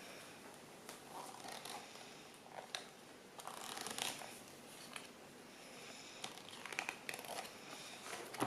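Faint paper rustling and crinkling with scattered small clicks: a book being handled and its pages turned.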